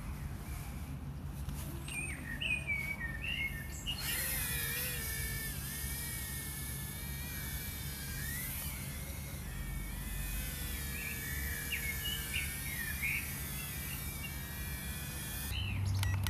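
Small birds chirping and calling over a steady outdoor background of hiss and low hum; the hiss sets in about four seconds in and stops shortly before the end.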